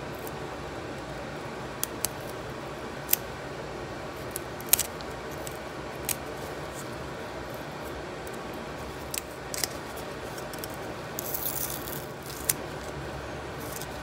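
Single-edge razor blade scraping and prying at an old output transformer's paper-wrapped winding, giving scattered sharp clicks and scrapes, with a short papery crackle about eleven seconds in as the brittle insulation is peeled away.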